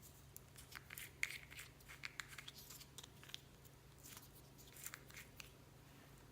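Clear slime mixed with beads and floam being worked by hand, giving faint, irregular crackling clicks and small pops.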